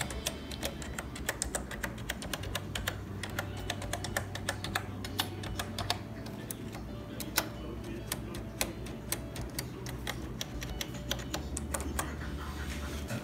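Apple Lisa keyboard being typed on quickly, a steady run of key clicks, as each key is tested after its foam pads were replaced.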